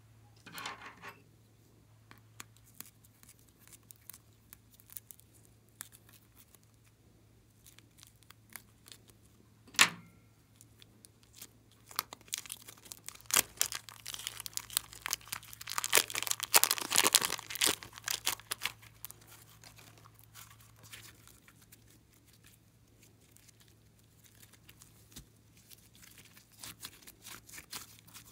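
Thin plastic piping bag crinkling and tearing as it is peeled off the yellow slime inside, with one sharp snap a little before halfway and a dense run of loud crackles through the middle. Near the end come fainter, softer clicks as the slime is pulled free and stretched.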